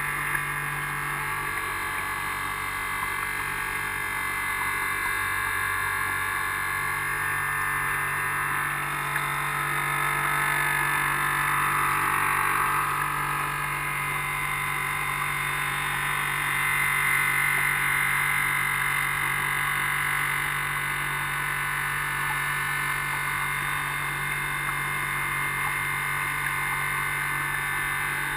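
380-size brushed electric motors of a radio-controlled harbour boat running steadily under way, a high whine with a low hum beneath it, growing a little louder twice along the way.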